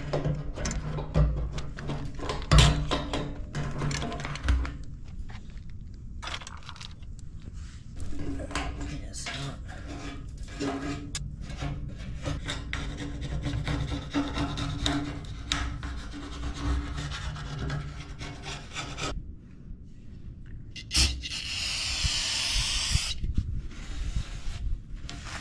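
Parts and hand tools being handled during work on a fuel pump assembly: irregular clicks, knocks and rubbing, with a burst of hissing lasting about two seconds near the end.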